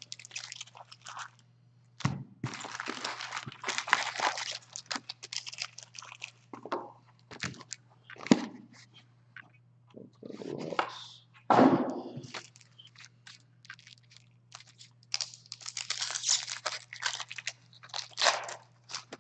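Foil packs of Upper Deck hockey cards and their cardboard box being handled: irregular crinkling and rustling, with a couple of sharper knocks about 8 and 12 seconds in, over a steady low hum.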